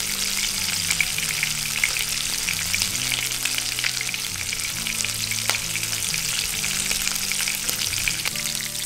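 Duck breasts frying skin side down in hot bacon grease in a nonstick frying pan: a steady sizzle with dense crackling of spattering fat.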